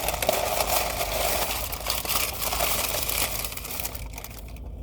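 Takeout food packaging rustling and crinkling as it is handled, with many small crackles.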